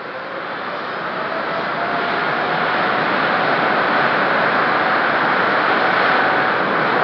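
Boeing 747 freighter's four jet engines at high power on its takeoff roll, growing louder over the first three seconds and then holding steady, with a whine running over the roar.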